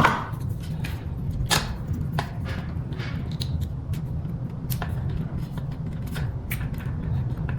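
Scattered small clicks and ticks of scooter wiring connectors being handled and unplugged, over a steady low hum.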